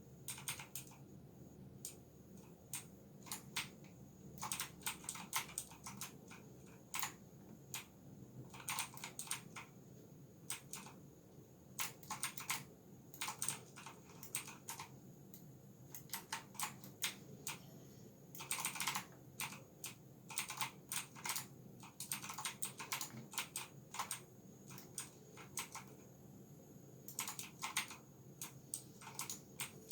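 Typing on a GamePower Saber RGB mechanical keyboard: quick runs of clicking keystrokes in bursts of a second or two, with short pauses between.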